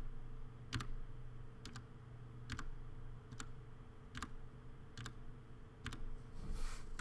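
Single key presses on a computer keyboard, seven evenly spaced clicks a little under a second apart, stepping through the entries of a drop-down menu, over a faint steady electrical hum.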